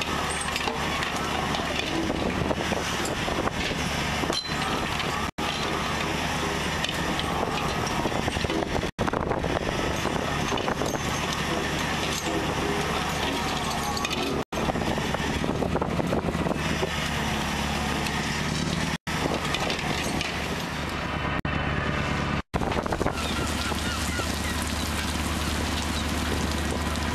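Steady machinery noise of a trawler working its net: a constant low engine hum with a dense wash of noise over it, cut to silence for an instant five times.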